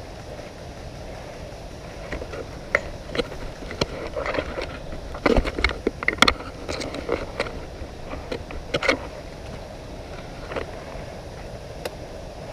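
Irregular rustling of leaves and twigs with sharp clicks and knocks of handled gear, as the player shifts and crouches in the undergrowth. The sounds start about two seconds in, are thickest around the middle, and die away about three seconds before the end, over a steady outdoor background.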